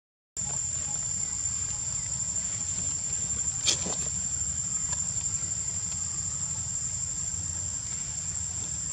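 Insects droning in one steady high tone over a low rumble, with a single sharp click a little before the middle. The sound drops out for a moment at the very start.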